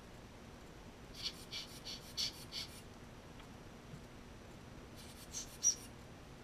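Light clicks and taps of small watchmaking tools and parts being handled on the bench: a run of about six quick clicks a little over a second in, then a short cluster about five seconds in, the last click the sharpest.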